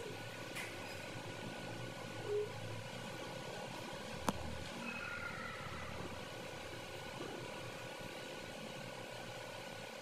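Steady background noise with a faint hum, over which chickens give a few short soft calls near the start and about two seconds in. A single sharp click comes about four seconds in.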